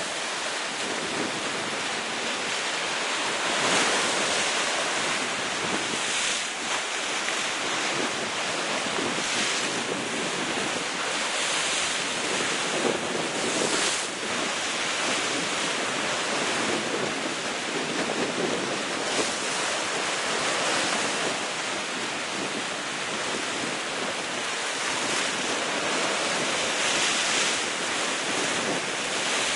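Sea waves breaking against the rocks at the foot of a cliff: a continuous rushing wash that swells and eases every few seconds.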